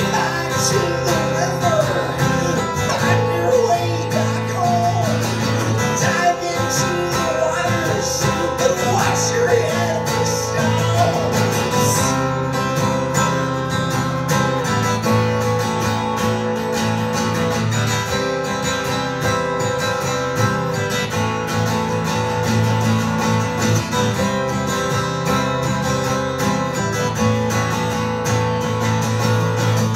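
Solo acoustic guitar played live, its chords ringing in a steady rhythm and changing every couple of seconds.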